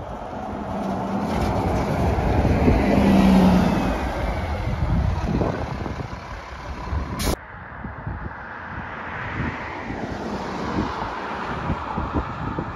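City transit bus driving past close by, its engine sound building to a peak about three seconds in. After an abrupt cut, quieter road noise follows as another bus approaches from farther off.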